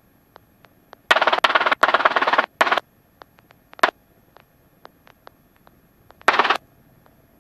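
Short bursts of buzzing, crackling static on a helicopter's headset radio and intercom feed, as if a microphone is keyed with no voice. One longer stretch starts about a second in, there is a brief blip a little later, and another burst comes near the end, with faint scattered clicks between.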